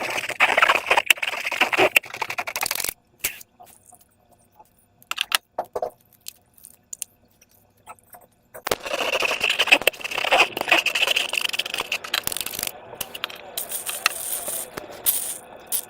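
Slime being squeezed and worked by hand, giving dense wet crackling and clicking in two spells of about three seconds each, with only scattered clicks between.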